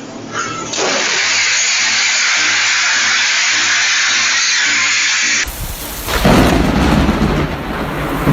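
Steady hiss of heavy rain, then about five and a half seconds in a loud clap of thunder that rumbles on deep and heavy.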